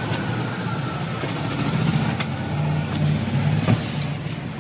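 Air hissing steadily out of a car tyre being let down through its valve, over a steady low hum, with a sharp knock about three-quarters of the way in.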